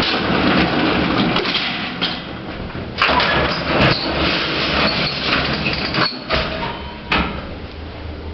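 Old passenger lift's collapsible metal gates rattling and clanking as they are worked, with sharp metal clanks about three seconds in and again about seven seconds in.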